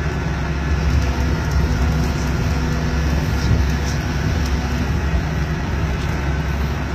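Steady running noise of a moving Okinawa monorail (Yui Rail) car heard from inside the cabin: a continuous low rumble, with a steady hum for a few seconds in the middle.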